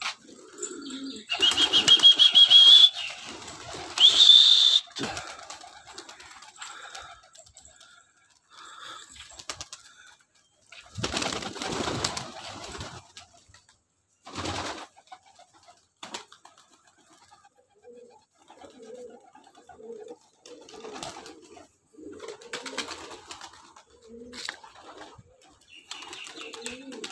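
Gola domestic pigeons cooing, with repeated low coos through the second half. Two loud bursts about a second and four seconds in carry a high, steady whistling tone, and a few shorter rustling bursts come in the middle.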